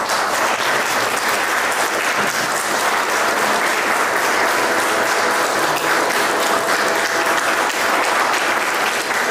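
A congregation clapping, a steady round of applause.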